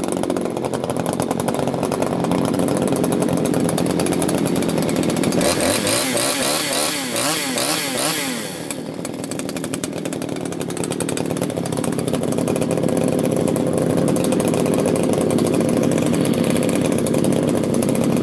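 Husqvarna 339XP two-stroke chainsaw running: the engine speed climbs with a wavering pitch for a few seconds past the middle, drops back, then rises again and holds high to the end.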